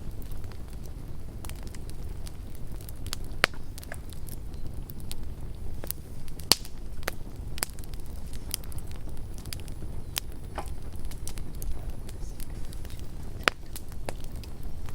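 Campfire burning with a steady low rumble and irregular sharp crackles and pops of burning wood, the loudest pops about three and a half, six and a half and thirteen and a half seconds in.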